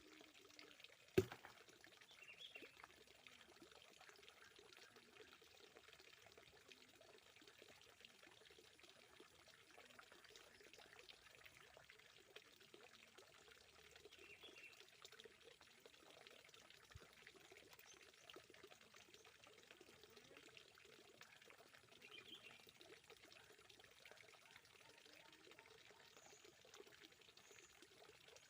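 Faint, steady trickle of running water, with one sharp click about a second in and a few faint chirps.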